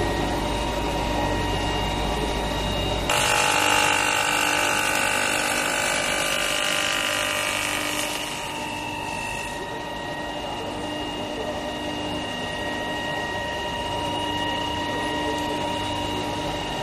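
Oriented PVC pipe extrusion line machinery running, a steady motor whine with several held tones and a pulsing low hum. About three seconds in it suddenly turns louder and hissier, then settles back to the steadier whine near the middle.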